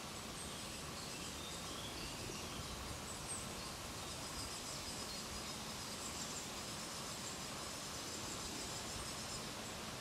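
Quiet forest ambience: a steady hiss with faint, thin high-pitched calls in the background.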